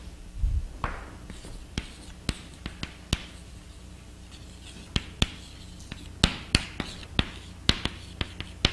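Chalk writing on a blackboard: a string of sharp, irregular taps as strokes begin, with short scratchy strokes between them. A dull thump about half a second in.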